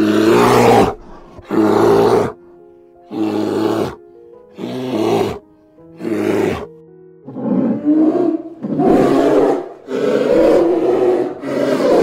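A large animal roaring over and over, about nine rough roars of roughly a second each, over background music with sustained notes.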